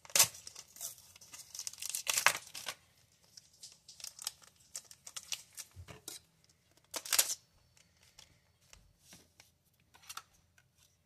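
Foil Pokémon booster pack wrapper being torn open and crinkled, in a series of short tearing and crinkling bursts, the sharpest right at the start.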